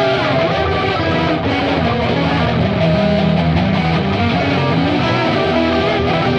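Distorted electric guitars playing dense, sustained music at a steady, loud level.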